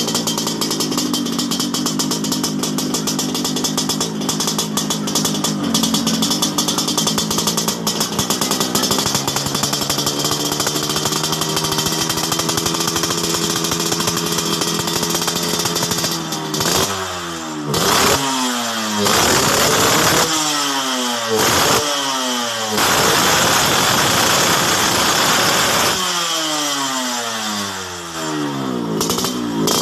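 Yamaha RX-King single-cylinder two-stroke motorcycle engine with the 'ngorok basah' (wet snore) exhaust note. It runs steadily for about the first half, then is revved repeatedly in short rising and falling blips, with one longer high rev held for a few seconds before it drops back.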